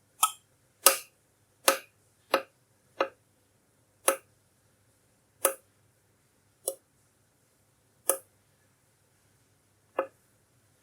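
Midea JK30E201 electric double heating pan making ten sharp pops at irregular intervals, close together at first and then further apart. These are the weird pops of a faulty, brand-new unit.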